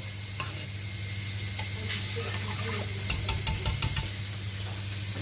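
Gas stove burner being lit: the spark igniter clicks rapidly, about six sharp clicks in under a second, about three seconds in. A steady low hum runs underneath.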